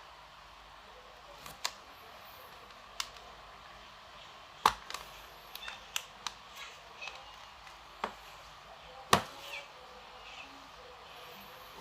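Sharp, separate clicks and taps of a smartphone and small repair tools being handled and set down on a work surface, about a dozen in all, the two loudest about a third and three-quarters of the way through.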